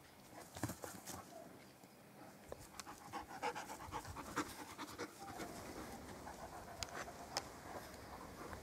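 A dog panting during rough play, with irregular short scuffling clicks.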